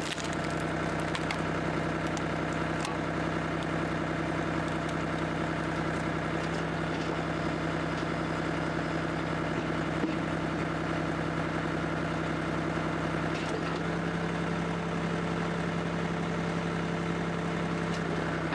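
Firewood processing machine running steadily, its engine and hydraulics holding a constant hum. A second, higher steady tone joins about three-quarters of the way through.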